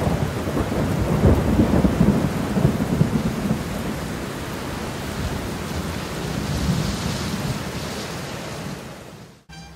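Heavy thunderstorm: a long low rumble of thunder, loudest in the first few seconds, over a steady downpour of rain. It cuts off suddenly near the end.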